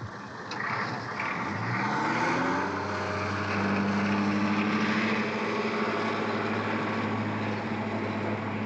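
An engine winding up in pitch over the first three seconds or so, then running at a steady pitch with a deep hum, over a wash of noise.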